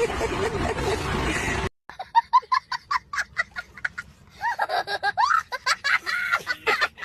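Meme sound-effect clips of laughter: a noisy, hissy clip cuts off abruptly about a second and a half in, followed by a run of rapid, choppy laughs and then gliding, high giggling.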